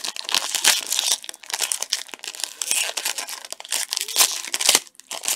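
Foil wrapper of a baseball card pack crinkling and tearing as gloved hands rip it open, a dense run of crackles.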